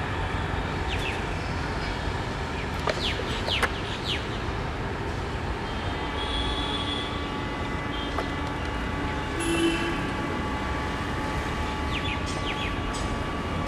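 Twin ALCo WDM3A diesel locomotives idling while standing at the head of a train: a steady low rumble with a few steady tones over it. Short high chirps, like birds, come about three seconds in and again near the end.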